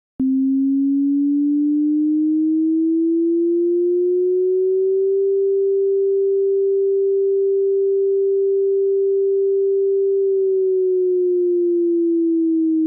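Software-generated tsunami warning siren for a distant-earthquake tsunami: one pure tone that starts abruptly, rises slowly in pitch for about five seconds, holds steady, then begins to fall about ten seconds in.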